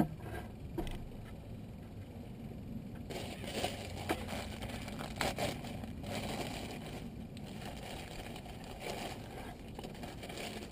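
Clear plastic bag of a power steering pump seal kit being handled and opened, rustling unevenly from about three seconds in, with a few sharper crackles.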